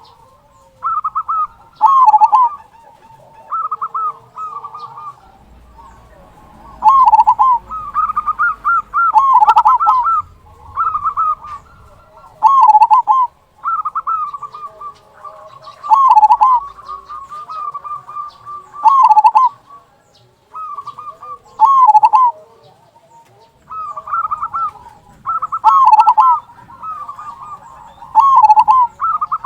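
Zebra dove (perkutut) cooing in its rhythmic song, repeated every two or three seconds. Each phrase is a quick run of notes ending on a louder, deep 'kung' note.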